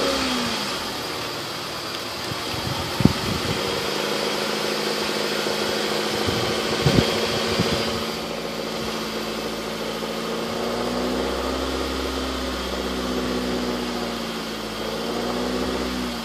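Honda Civic engine idling steadily, the owner's example of the knocking noise it makes. A few sharp knocks stand out about three and about seven seconds in, and the engine speed rises and falls gently near the end.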